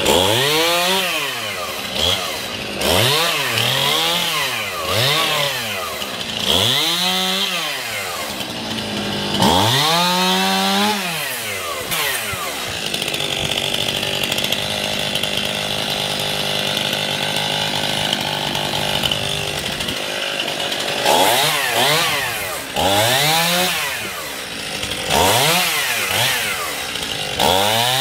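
Chainsaw revving up and dropping back again and again, each rise and fall lasting about a second. In the middle it is held at a steady high speed for about eight seconds, then the quick revs resume.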